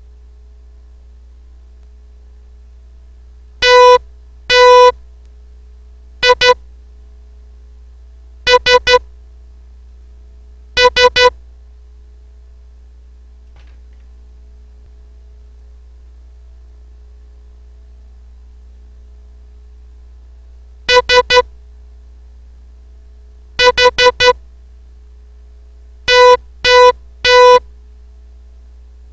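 Morse code practice tone: a single steady electronic beep switched on and off in dashes and dits, sent slowly as words to decode. There are two short words about ten seconds apart.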